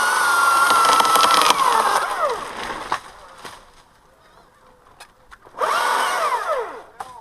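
Two-stroke chainsaw throttled up to full revs for about two and a half seconds, then released so the pitch falls back toward idle; a second, shorter burst of throttle near the end falls away the same way.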